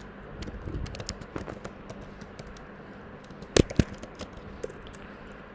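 Typing on a computer keyboard: a quick, irregular run of key clicks, with two much louder clicks close together about two-thirds of the way through.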